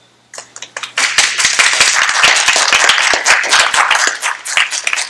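Applause: many hands clapping. It starts with a few scattered claps and fills in to steady applause about a second in.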